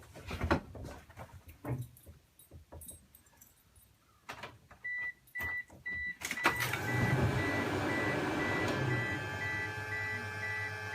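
Clicks and knocks of someone moving about inside a car. About five seconds in, a warning chime starts beeping about twice a second. Soon after, a steady hum comes on as the car's electrics are switched on, ahead of a cold start.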